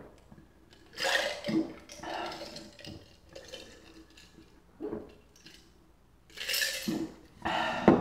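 A person gulping down a fizzy pineapple soft drink from a glass mug, in several loud swallows and breaths about a second apart. Near the end the glass jar mug is set down on a wooden table with a sharp knock, the loudest sound.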